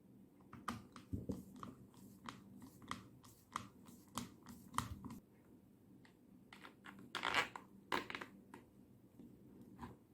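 Small hard parts being handled on a workbench: a run of sharp clicks and light knocks, with a short scraping rasp about seven seconds in.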